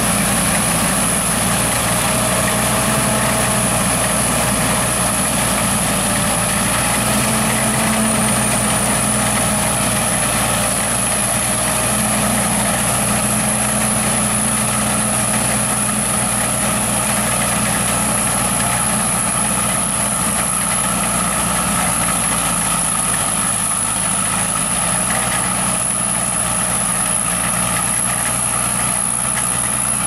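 Sakpattana KM-AMT corn combine harvester running steadily while working through standing corn: a constant engine drone with machinery hum, its pitch drifting only slightly, and a thin high whine over the top.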